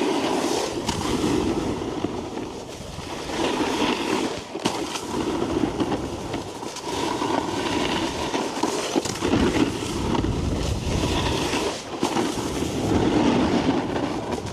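A snowboard's base and edges scraping and sliding over snow while riding and buttering, a continuous rough noise that swells and fades with the turns, with a few sharp clicks.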